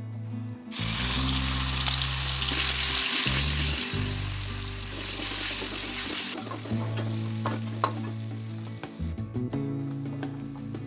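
Food sizzling in hot oil in a pan. The sizzle starts loudly about a second in and drops off after about six seconds, followed by light clicks of a utensil stirring.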